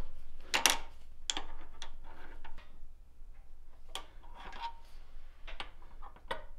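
Light, irregular taps of a small hammer and hand tools on metal knife parts held in a steel bench vise, roughly one or two taps a second with short pauses.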